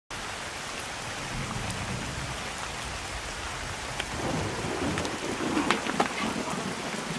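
Steady rain falling, an even hiss with a low rumble underneath. A few sharp ticks and some scuffling sounds come in over the second half.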